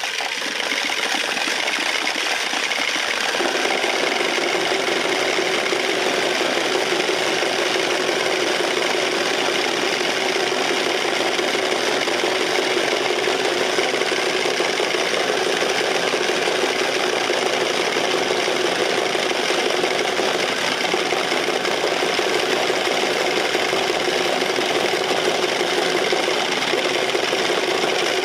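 Many wooden Easter rattles (Klappern) cranked together in a continuous dense clatter that builds up over the first few seconds and then holds steady.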